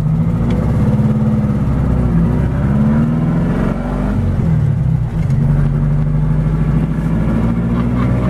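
Puma GT 1600's air-cooled VW 1600 flat-four engine, heard from inside the open cabin while driving. Its pitch rises and falls a few times in the first half, then holds steady over the last few seconds.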